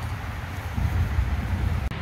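Wind rumbling on the microphone, with a very brief dropout near the end.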